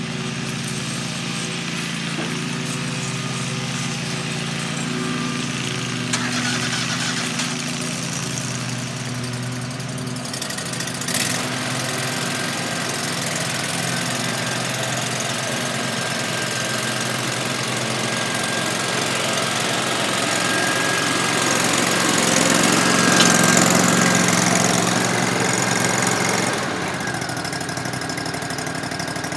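An engine running steadily, with a sharp knock about 11 seconds in and a louder stretch from about 21 to 26 seconds.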